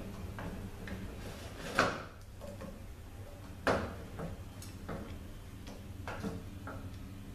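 Hand tools working small bolts on a transmission valve body: scattered light metal clicks, with two sharper knocks about two seconds apart, as the bolts are tightened down.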